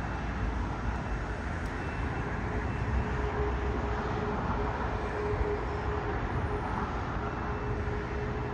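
Jet engines of a taxiing Boeing 737 airliner at idle: a steady, even jet noise with a faint steady whine running through it.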